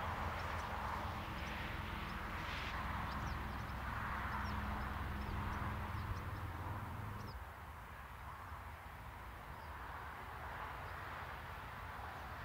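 Small birds chirping over a steady rushing hiss, with a low hum underneath that cuts off suddenly about seven seconds in, after which the chirps mostly stop as well.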